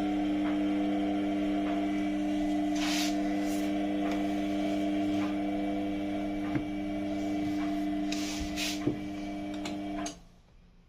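Indesit WES9X washing machine running with a steady mechanical hum, then stopping abruptly about ten seconds in. A couple of light clicks sound partway through.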